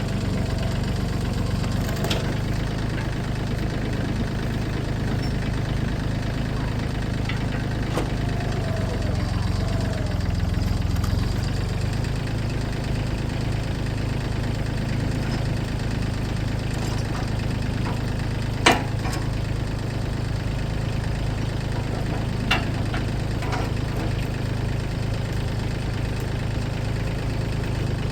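A heavy machine's engine running steadily, with a sharp knock about two-thirds of the way through and a smaller one a few seconds later.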